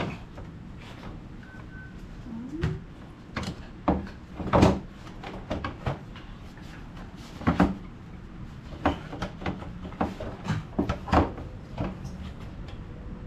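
Parts being handled and fitted back in a car's engine bay: irregular clicks and knocks of trim pieces, brace and fasteners, the loudest about four and a half seconds in, over a faint steady hum.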